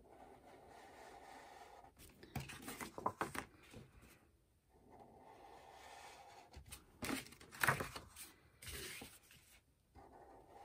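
A felt-tip marker drawing long strokes on paper, a soft steady scratching of the tip dragging across the sheet. It is broken twice by louder rustling and tapping as the paper and hands are shifted on the table.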